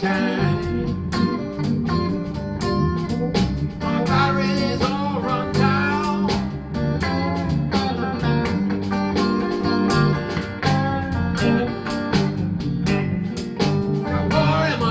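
Blues band playing: electric guitar leads with bent, wavering notes over bass and a steady drum beat.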